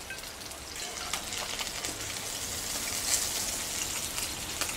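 Steady sizzling and crackling of food cooking in a pan on the stove, with a few light clicks of a metal spatula against a metal tray.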